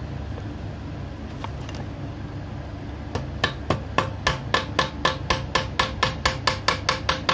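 Hammer blows on a metal band clamped in a bench vise, bending over its tab: starting about three seconds in, a fast, even series of about four strikes a second, each with a short metallic ring.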